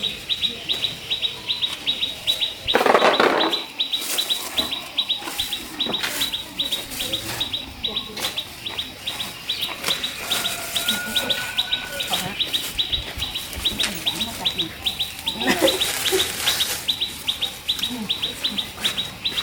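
Bird chirping: a rapid, even series of high chirps, about five a second, kept up throughout. A louder burst of noise comes about three seconds in and again around sixteen seconds.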